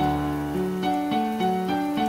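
Background piano music: a steady stream of notes over held low notes.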